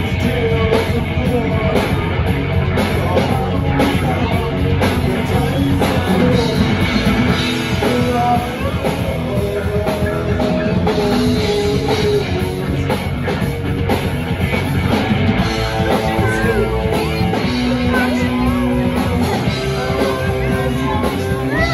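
A live rock band playing: electric guitars and a drum kit, with a singer.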